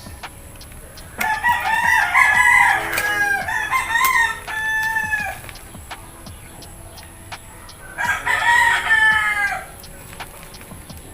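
Rooster crowing twice: a long crow starting about a second in, and a shorter one near the end.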